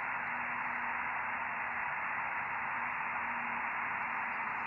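Steady receiver hiss from an Icom IC-705 transceiver tuned to the 20-metre amateur band with no station transmitting. The hiss is cut off sharply above about 3 kHz by the radio's narrow voice receive filter.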